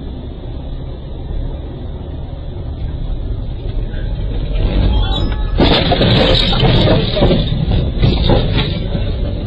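Vehicle driving noise heard from inside the car: a steady low road and engine rumble. About halfway through it turns sharply louder and rougher, with dense crackling noise for a few seconds, then eases.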